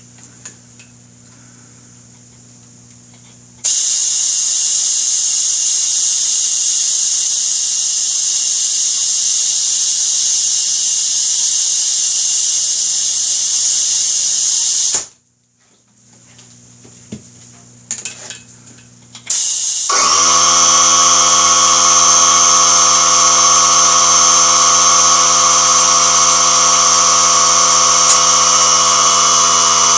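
Compressed air hissing loudly for about eleven seconds while a tubeless motorcycle tire is inflated to seat its beads. It stops abruptly, a few clicks follow, and about two-thirds in an electric air compressor motor starts up, rising quickly to speed and running steadily.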